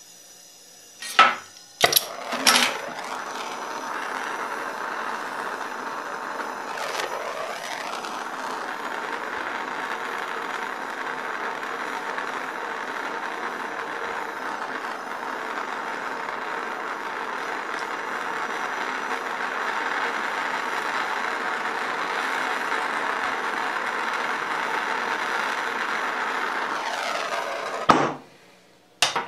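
A gas hand torch: a few sharp clicks in the first couple of seconds, then the flame hissing steadily as it heats flux-coated copper pieces to flow silver solder into the joint. The hiss cuts off suddenly about 28 seconds in when the torch is shut off.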